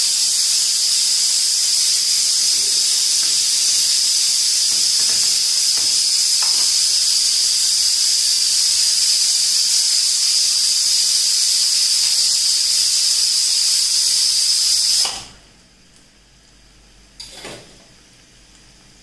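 Aluminium pressure cooker letting off steam through its weighted vent: a steady high hiss with a whistling tone, the cooker's 'whistle', one of several counted while tenderising mutton. It cuts off suddenly about fifteen seconds in, and a single brief knock follows near the end.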